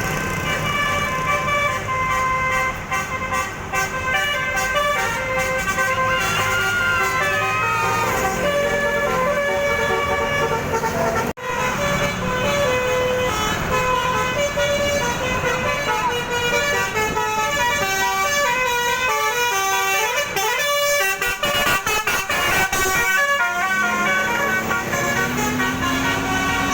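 Basuri melodic multi-trumpet vehicle horn playing tunes, several pitched tones sounding together and stepping from note to note. The tune breaks off suddenly about eleven seconds in and another horn melody follows.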